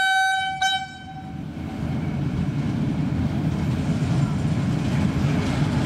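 Bathara Kresna diesel railbus: the end of a steady horn blast, broken by a short gap and fading out about a second in. Then the low rumble of the railbus and its wheels on the rails grows steadily louder as it approaches.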